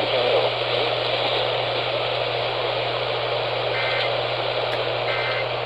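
Hissing AM radio static, then about four seconds in two short warbling data bursts about a second apart: the Emergency Alert System end-of-message code that closes the alert broadcast.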